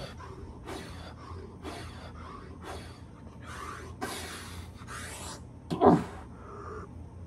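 A man breathing hard through a set of push-ups: quick, hissing breaths about one every half second to second, with one louder, voiced, strained exhale about six seconds in.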